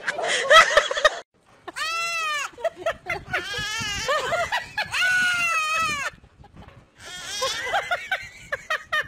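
Young goat bleating: several long, wavering calls that rise and fall in pitch, one after another.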